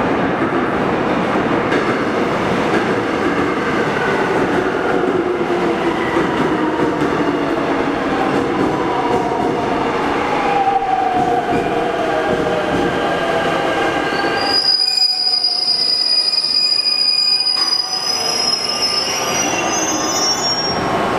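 Seoul Subway Line 5 train pulling into a station, its motor whine sliding down in pitch as it slows. About fourteen seconds in, a steady high-pitched squeal starts and lasts until the train stops near the end.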